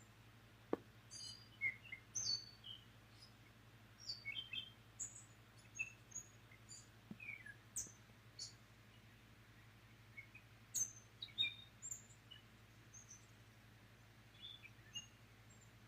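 Wild birds chirping: many short, high calls scattered irregularly, with a faint steady low hum beneath.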